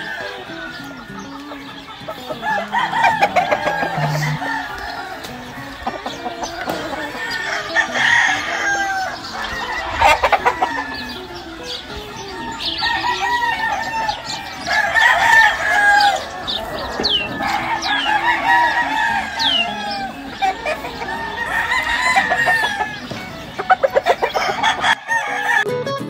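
Roosters crowing again and again in overlapping bouts across the pens, with hens clucking.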